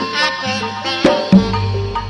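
Traditional drum-and-percussion music: sharp hand-drum strikes over steady ringing pitched tones, with a low steady hum coming in about one and a half seconds in.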